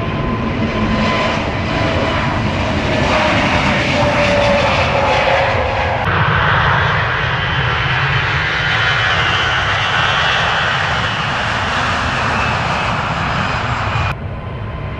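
Airbus A321 airliner's turbofan engines running with a steady jet roar and a faint whine that falls slightly in pitch over the first few seconds. The sound changes abruptly about six seconds in and again near the end.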